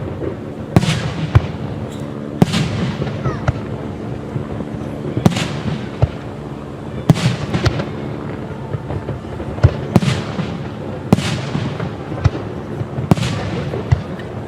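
Aerial fireworks shells bursting in a display, a dozen or so sharp bangs at irregular intervals of about one to two seconds, each trailing off in an echoing fade.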